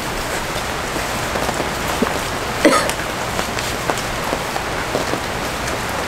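Heavy rain falling steadily on a canopy overhead, with a brief sharp sound about two and a half seconds in.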